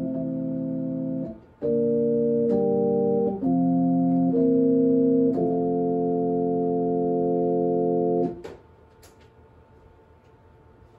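Organ playing slow sustained chords that hold without fading, moving to a new chord every second or so with a brief break early on. It ends on a long held final chord that cuts off about eight seconds in, leaving faint room tone.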